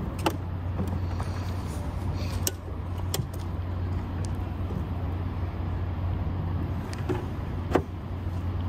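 Sharp clicks and knocks of an RV power plug being seated in a campground power pedestal and its cover handled, a few times, over a steady low drone.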